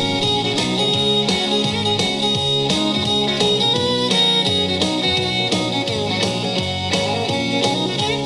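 Instrumental country music: guitars with a fiddle playing over a steady beat.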